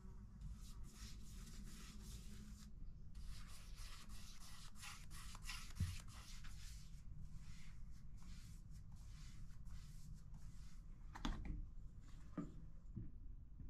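Paintbrush bristles brushing a wood finish onto bare wooden stair treads: repeated soft swishing strokes, about two a second, over a low steady hum. A small knock comes near the end.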